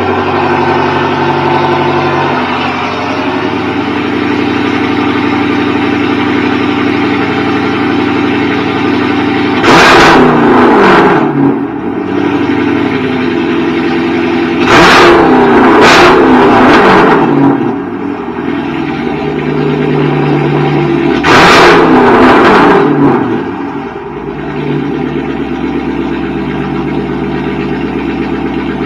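Chrysler 300S's 5.7-litre Hemi V8 with its catalytic converters gutted, heard at the exhaust tips on a cold start. It runs at a steady idle and is revved three times, about 10, 15 and 21 seconds in, each rev rising and falling in pitch. It settles to a quieter idle near the end.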